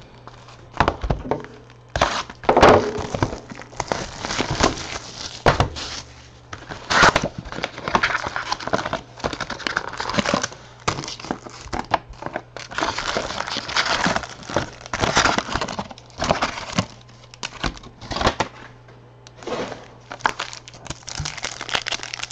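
Trading card packs' foil wrappers being torn open and crinkled, with cards rustling as they are handled: a dense, irregular run of crackles and rustles with a few sharper clicks.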